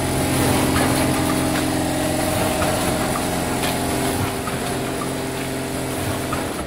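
Vertical form-fill-seal powder packing machine with auger filler running: a steady motor hum with faint ticks about once a second, cutting off near the end.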